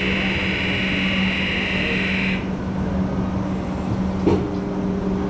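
An amusement ride's start warning buzzer sounding and cutting off about two seconds in, over a steady low hum.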